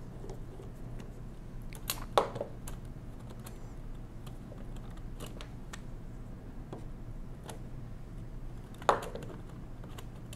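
Light metallic clicks and ticks as a hand screwdriver turns small screws out of the frame of a 1920s Monroe model K mechanical calculator, with two sharper clicks, about two seconds in and near the end. A steady low hum runs underneath.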